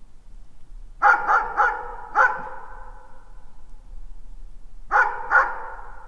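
A dog barking in the distance, with echo: a quick run of four barks about a second in, then two more near the end, each trailing off in reverberation.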